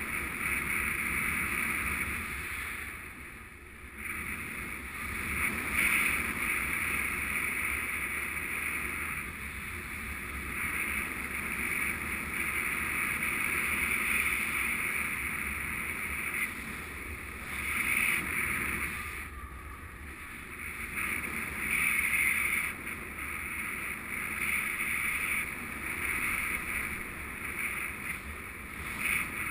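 Wind rushing over the camera during a paraglider flight, a steady noise that swells and eases every few seconds with the airflow.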